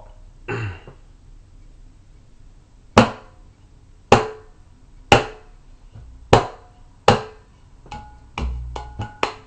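Mridanga (khol) drum played by hand: five sharp, ringing single strokes about a second apart, the ta stroke being demonstrated, then a quick run of lighter strokes with a low thump near the end.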